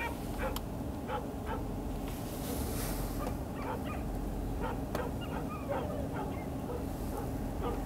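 A pack of stray dogs howling and yelping together, many short overlapping calls from several dogs at once. A steady low rumble runs underneath.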